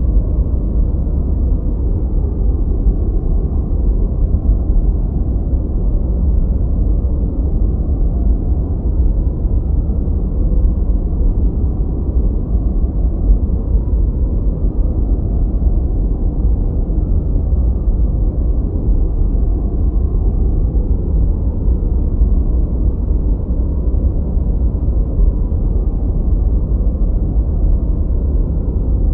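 Gentle white noise softened to a deep, steady rushing with no hiss on top, even and unchanging throughout.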